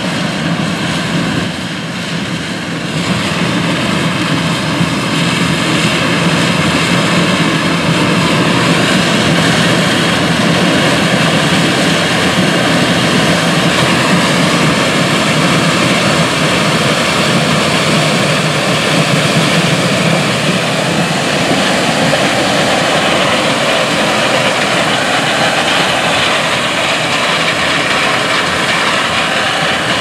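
A large modern combine harvester harvesting corn: the steady, loud running of its engine and threshing machinery. It grows louder over the first few seconds and then holds steady.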